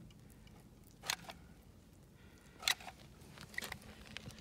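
Faint handling sounds while silicone sealant is pressed from a caulk cartridge onto a wire splice: three short clicks, one about a second in and two more near the end.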